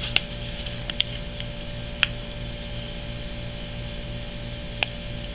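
A few sharp light clicks and taps from handling a silver round and its packaging, over a steady low electrical hum.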